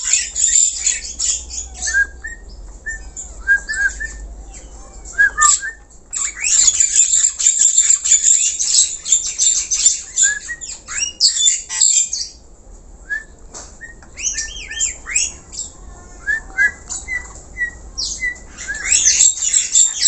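Caged jalak hongkong (black-collared starling) singing vigorously: long runs of harsh, scratchy chattering broken by short whistled notes and quick rising whistles. The loudest rasping stretch comes in the middle and starts up again near the end.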